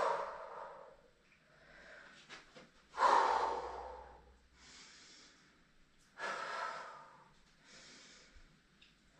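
A man breathing hard after leg-swing exercise: three loud exhales about three seconds apart, each fading over a second, with quieter inhales between.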